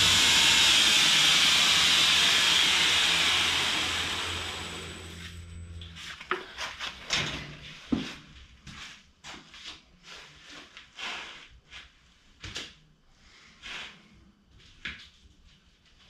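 Belt grinder switched off and spinning down: the belt's loud hiss and the motor hum fade away over the first few seconds and stop about six seconds in. After that, scattered light knocks and clicks of things being handled.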